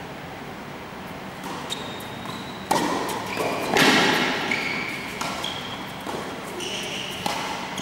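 Tennis rally on an indoor hard court: rackets striking the ball several times, the loudest hits about three and four seconds in, each echoing in the hall, with short high squeaks between them.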